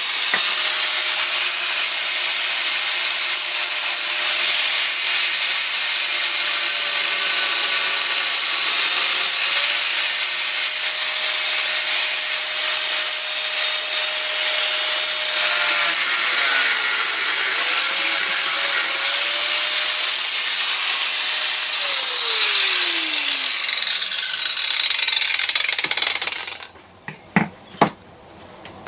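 A power tool cutting into steel, its motor whining steadily. The pitch sags under load around the middle, then the motor winds down near the end, followed by a few sharp clinks of metal.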